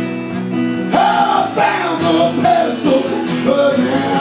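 Live music: a strummed acoustic guitar, with a man's voice coming in and singing over it about a second in.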